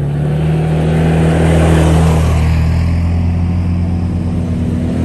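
Engines of off-road ATVs running close by, growing louder over the first two seconds and then holding steady.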